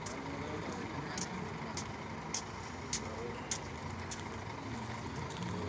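Steady low engine hum, with a few sharp clicks and faint voices in the background.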